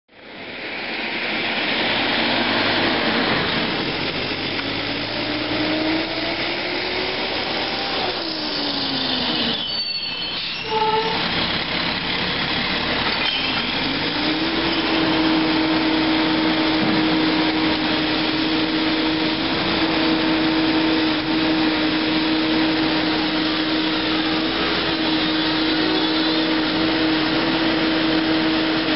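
Recycling truck running at the curb, loud and continuous. A pitch rises about three seconds in and falls around eight seconds. After a brief break near ten seconds, a steady whine holds from about fourteen seconds on, as the engine and hydraulics keep working.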